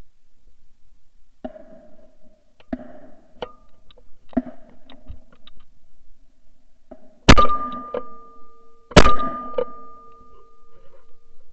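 Two shotgun shots about a second and a half apart, recorded by a barrel-mounted ShotKam camera, each leaving a ringing tone that hangs on for over a second. Several fainter knocks come in the seconds before them.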